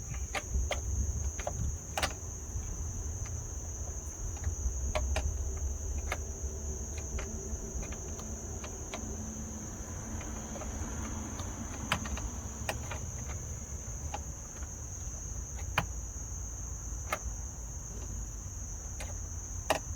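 Crickets chirping steadily, with scattered sharp metallic clicks and taps of a wrench being flipped and refitted on the side mirror's mounting nut as it is tightened a half turn at a time.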